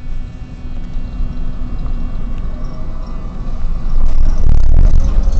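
N8C tram under way, heard from inside the car: a low rumble of wheels and running gear with a steady whine above it. It grows much louder and rougher about four seconds in.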